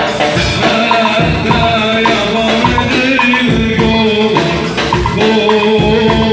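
Instrumental break in an Arabic song: a melody line over a steady percussion beat, with no sung words.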